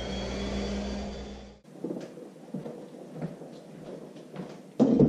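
Electric random orbital sander with dust extraction running with a steady hum, cutting off suddenly about a second and a half in. After that come scattered knocks and clunks of workshop handling, with a loud thump near the end.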